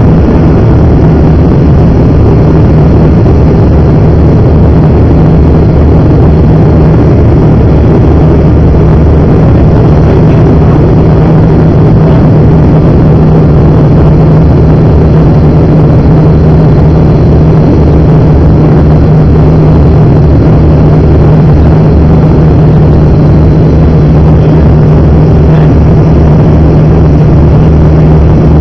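Cabin drone of an ATR 42-300's twin turboprop engines and propellers on final approach, loud and steady, with a strong low hum.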